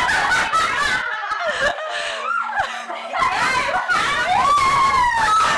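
Several people laughing, snickering and exclaiming over one another, their voices overlapping without clear words.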